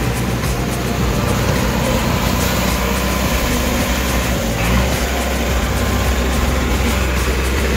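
JCB backhoe loader's diesel engine running steadily at a low, even note.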